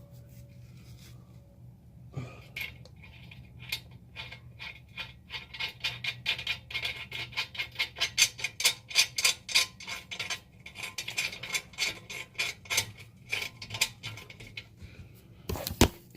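A socket ratchet clicking in quick, even runs of about four to five clicks a second as it works a bolt on the exhaust pipe flange. A single louder metal knock comes near the end.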